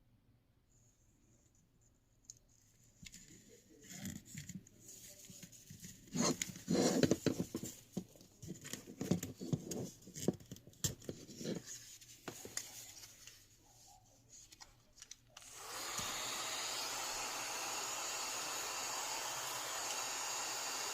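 A small electric fan handled with clicks, knocks and rustling, then switched on about 16 seconds in and running with a steady airy hiss and a faint hum.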